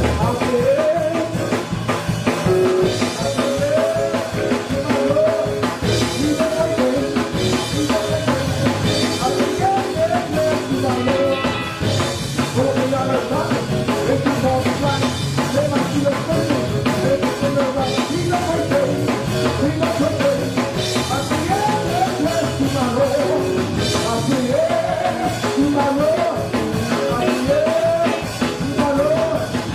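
Church praise music played on a drum kit with singing, running steadily.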